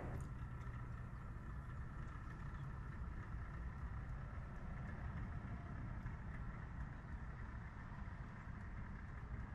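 A steady low engine-like rumble with faint steady tones above it, with no change in pace.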